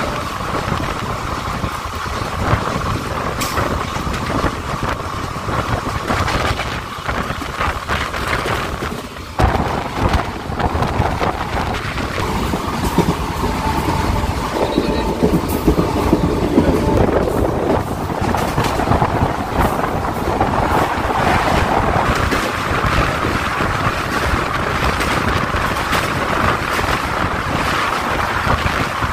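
Passenger train running along the line, a steady rumble of wheels on rails with frequent clicks, and wind buffeting the microphone; the noise dips briefly about nine seconds in.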